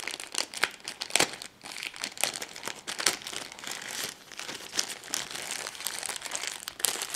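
Thin plastic bag around a USB cable crinkling as hands unwrap it: irregular crackling throughout, with sharper crackles about a second in, around three seconds and near the end.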